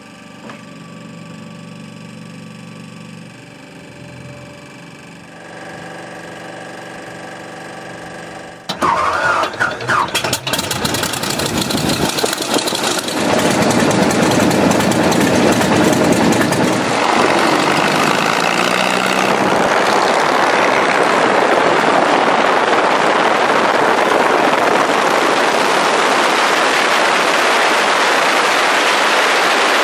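Biplane's piston aircraft engine being started: a steady whine for the first several seconds, then the engine catches about nine seconds in with irregular coughs and pops, and from about 13 seconds it settles into loud, steady running.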